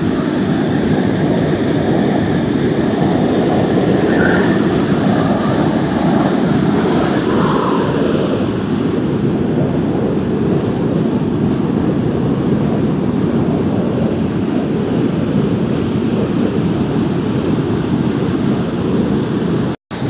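A stepped man-made waterfall running in heavy spate after a lot of rain, with water pouring down the steps in a loud, steady rush.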